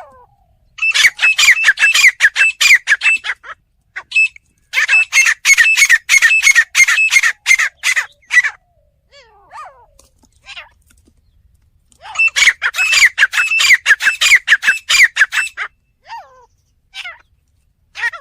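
Grey francolin (teetar) calling: three loud bursts of rapid, repeated shrill notes, about five a second, each burst lasting three to four seconds, with a few single notes in the gaps between them.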